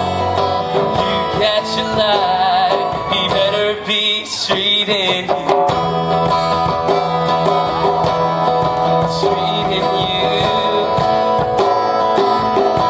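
Live acoustic song: a steel-string acoustic guitar strummed and picked, with a djembe hand drum keeping time and a voice singing along.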